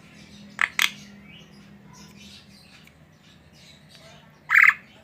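Javan myna calling: two short, sharp notes in quick succession just after half a second in, then a louder, harsh call near the end.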